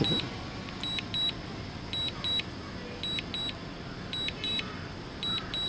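DJI Mini 2 return-to-home alert beeping while the drone comes down to land: high double beeps about once a second over a faint steady hiss.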